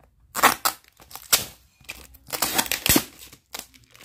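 Packaging rustling and crinkling in a few loud bursts as a cardboard box is handled among bubble wrap, with a dull knock about three seconds in.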